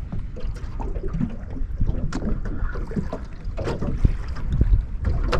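Water lapping and slapping against the hull of a small open boat, with occasional knocks against the hull and low wind rumble on the microphone.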